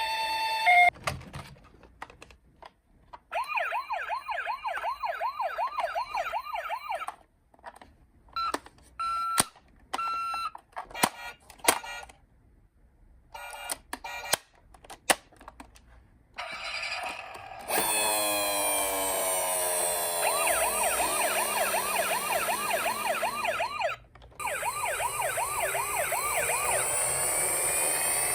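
Electronic sirens of toy ambulances and police cars: a two-tone hi-lo siren at the start, then a fast warbling wail, short beeps and scattered clicks. About two-thirds of the way through several toy sirens sound together, broken by a brief gap.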